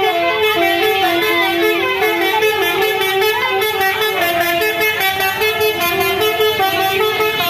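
Bus 'telolet' musical air horn of the Basuri type playing a quick melody of stepped notes, with several notes sounding together, without a break.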